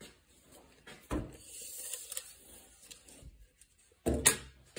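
Handling noises at a plastic tool cart: a sharp knock about a second in, faint rustling, then a louder metallic clatter near the end as a steel tape measure's blade is pulled out.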